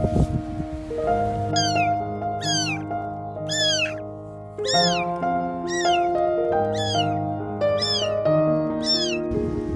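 A very young kitten crying out over and over, about once a second, each high-pitched meow falling in pitch. Soft background music with held notes plays underneath.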